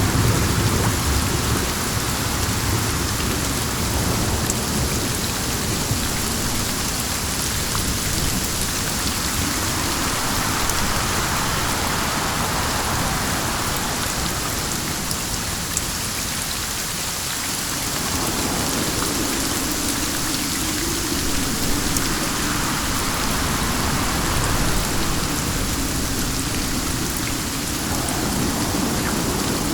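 Steady, dense rainfall with wind, with a low rumble of thunder fading out in the first second.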